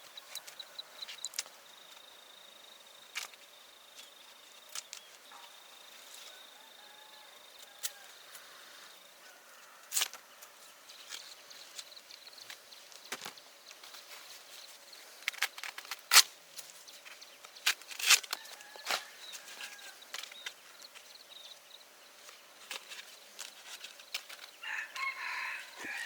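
Chickens clucking, with a short call near the end, among scattered sharp clicks and knocks.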